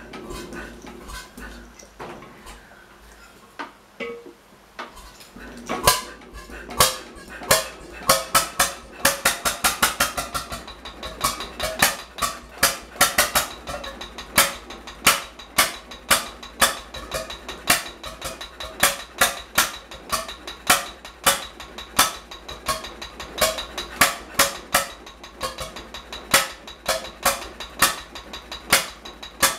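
H V McKay Sunshine 7hp stationary engine starting. After a few quiet seconds with scattered clicks, it catches about six seconds in with a quick run of sharp exhaust beats, then settles into a steady, slightly uneven firing beat of about two a second.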